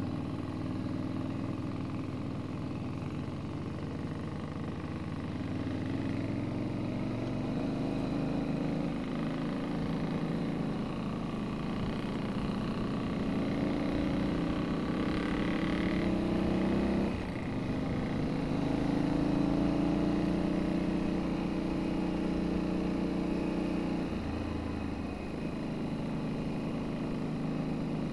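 Motorcycle engine running under way on a gravel track. Its pitch climbs slowly as it pulls, then drops sharply a little past halfway and again near the end, as at gear changes or easing off the throttle.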